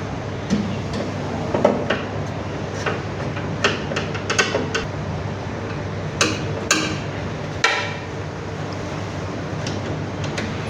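Scattered sharp metallic clinks and knocks, about eight of them at uneven intervals, from metal hardware and tools being handled and set down while fitting the BMS mounting plate into the battery case, over steady background noise.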